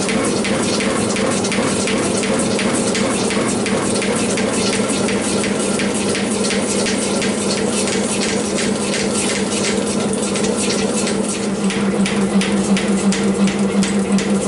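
Metal shaper running a cut at about 160 strokes a minute, its ram stroking in a regular rhythm over a steady motor hum. The rhythm gets more pronounced near the end.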